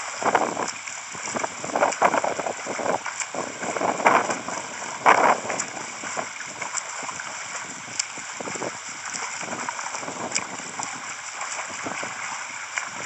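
Water splashing from a swimmer's front crawl arm strokes, heard as loud splashes every second or two at first. These give way to a softer, steady wash and gurgle of water.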